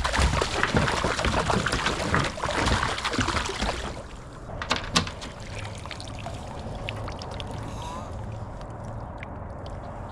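Water splashing and sloshing around a kayak with clattering handling knocks for about four seconds, then quieter lapping with a few sharp clicks.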